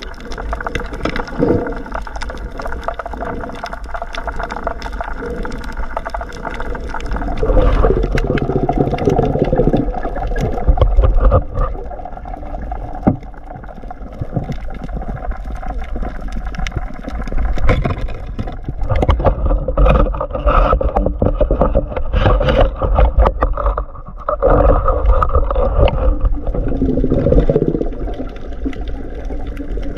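Underwater sound picked up by a camera on a diver swimming: water washing and gurgling against the housing, with a low rumble and many irregular sharp clicks and knocks.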